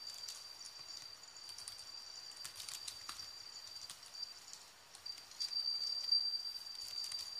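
Steady high-pitched insect trill, which drops out briefly about halfway through and then resumes, with a few faint clicks.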